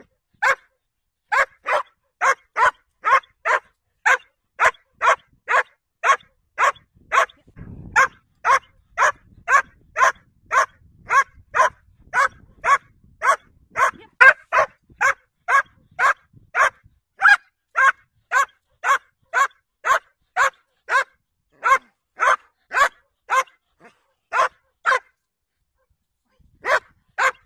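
Puppy barking in a fast, steady rhythm, about two to three short barks a second, with a pause of a second or so near the end. It is barking at a handler's bite pillow in protection-sport foundation work.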